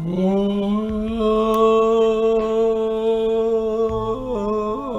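A man's voice holding one long, steady vocal note, like a drawn-out cry. About four seconds in it wobbles up and down in pitch, then holds steady again.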